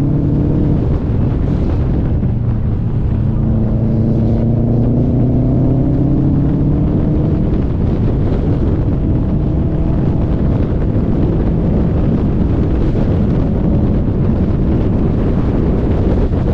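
Car engine pulling through the revs, its pitch rising slowly and easing off, over a heavy steady rumble of wind buffeting the microphone and road noise.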